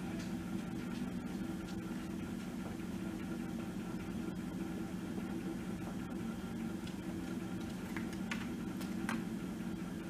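Steady drone of a grapple truck's diesel engine running the hydraulic knuckleboom loader as the grapple swings, with a few light clicks near the end.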